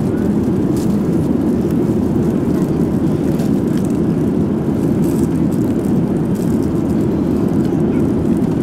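Steady cabin noise inside a Boeing 787 airliner in flight: an even, unbroken rush of engine and airflow noise, heaviest in the low range.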